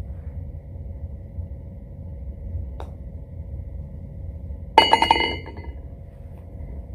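Golf ball dropping into the hole's cup: a short bright clink and rattle about five seconds in, over a steady low background rumble, with a faint tick a couple of seconds earlier.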